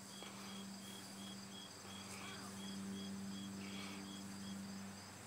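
Insects, most likely crickets, chirping in an even, steady rhythm of about three high chirps a second, over a faint steady low hum.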